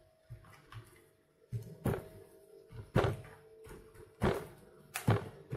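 Hands rubbing spice mix into slabs of salted pork fat in a plastic tub, with four sharp knocks about a second apart from about two seconds in as the pieces are set down and pressed against the plastic container.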